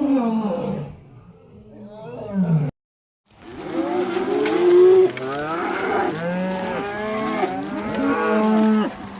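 Cattle mooing: a few long, falling calls, then after a brief break about three seconds in, a herd of cows calling over one another.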